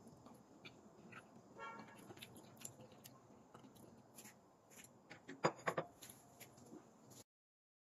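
Quiet background hiss with scattered faint clicks, a brief high-pitched toot about one and a half seconds in, and a louder cluster of sharp knocks about five and a half seconds in; the sound cuts off to silence near the end.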